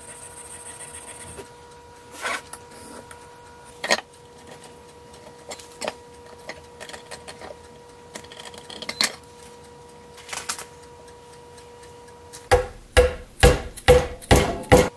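A hammer strikes a thin metal tool held upright in a wooden plank about six times in quick succession near the end, each blow with a short ring. Before that come a few scattered light knocks and scrapes of wood being handled, over a faint steady hum.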